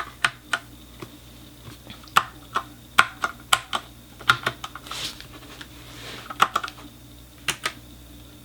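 Ajazz K870T mechanical keyboard with Huano brown tactile switches, being pressed in scattered single keystrokes and short quick clusters at uneven intervals.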